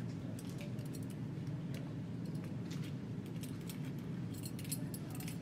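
Light metallic clinks and jingles, a scatter of short sharp clicks that come thicker near the end, over a steady low hum.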